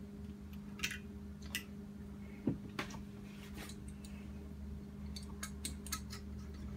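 Scattered light metallic clicks and taps of hand tools, a pick and pliers, working at the LG washer clutch assembly to get its failed shaft bearings out, over a steady low hum.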